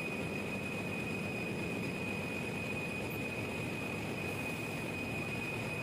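Large Wärtsilä generator engine running steadily at close range, an unbroken machinery din with a constant high whine on top.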